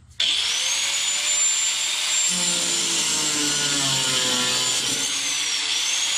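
Angle grinder with a cutoff wheel switched on, its motor whining up to speed, then cutting through the steel wire glass holders of a metal wine rack. The whine sags in pitch under load near the end and picks back up.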